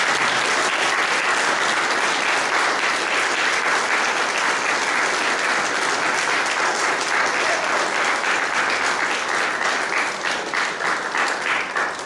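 Congregation applauding: dense, steady clapping from many hands, thinning out near the end.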